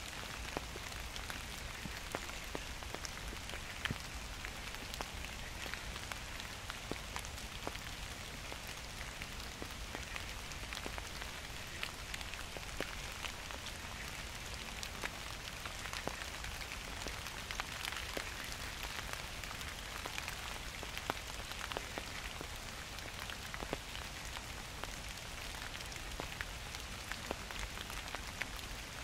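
Gentle rain falling steadily, a continuous hiss with many separate drop hits scattered through it.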